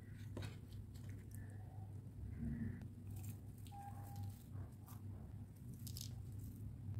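Faint, brief crackles of crisp fried sev being crumbled between the fingers and scattered over a plate of noodles, over a steady low hum.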